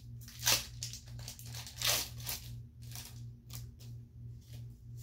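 Foil wrapper of a Pokémon card booster pack being torn open and crinkled by hand, in a few short rips and rustles, the loudest about half a second and two seconds in.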